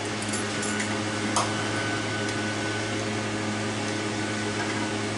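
A steady machine hum with an even, unchanging pitch, and one light sharp click about one and a half seconds in.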